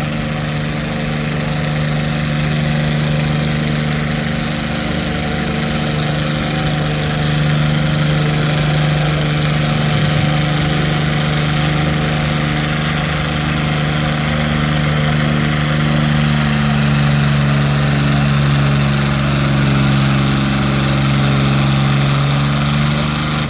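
Farm-stock tractor's engine pulling a weight-transfer sled under full load, a steady, loud drone that drops slightly in pitch late in the pull.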